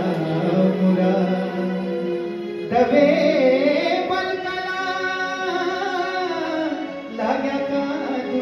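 A man singing a slow melody into a microphone, with long held notes that bend in pitch, over electronic keyboard accompaniment. A new, louder phrase comes in about three seconds in.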